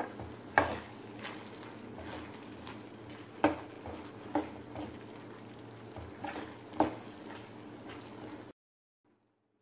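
Thick chickpea masala gravy sizzling and bubbling in a metal kadai on high heat as it cooks down dry. A metal spatula stirs it, scraping and knocking sharply against the pan several times, loudest a little after half a second in. The sound cuts off suddenly near the end.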